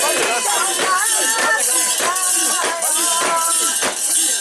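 Crowd of mikoshi bearers chanting and singing in rhythm, with a held, sliding lead voice over them and metal fittings on the shrine jangling with each step.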